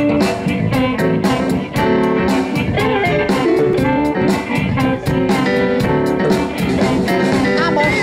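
Live blues band playing an instrumental intro: electric guitar and harmonica over a steady drum beat and keyboard.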